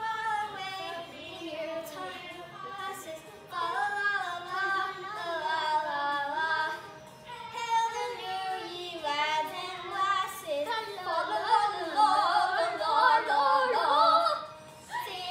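Young girls singing a song together, their voices louder and fuller over the last few seconds.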